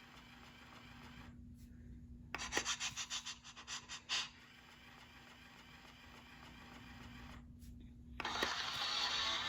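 Talking PAW Patrol Chase plush toy's speaker playing a short sound effect, a quick run of pulses lasting about two seconds. Near the end the toy starts playing music.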